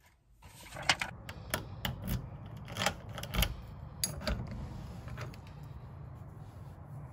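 A run of sharp, irregular clicks and knocks from keys and a door deadbolt as an apartment front door is unlocked and pushed open, with a low steady hum underneath.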